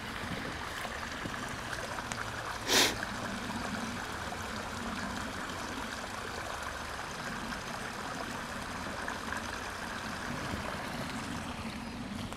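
Small rocky creek trickling over stones, a steady even rush of water. One short loud swish about three seconds in.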